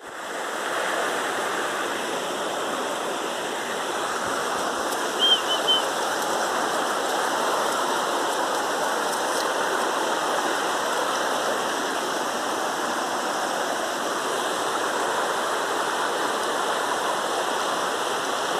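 Steady rushing noise of flowing water, like a stream or small waterfall, with three short high chirps about five seconds in.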